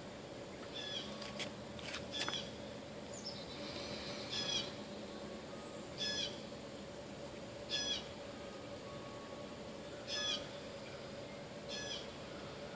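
A bird calling over and over, short high calls about every two seconds, over a steady faint hum.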